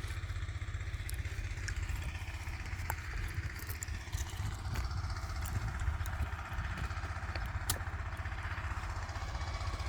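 Small diesel engine of a mini excavator running steadily with an even low throb. A few sharp clicks and knocks sound through it, the loudest a little before the end.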